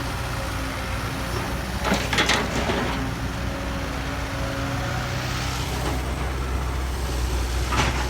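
Heavy diesel engine of construction machinery running steadily, with a burst of knocks and clatter about two seconds in and one more short knock near the end.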